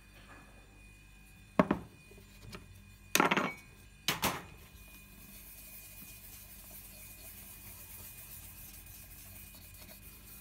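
Three loud knocks and scrapes in the first half, then a cloth rubbing paste wax onto a wooden lens board in a faint, steady hiss.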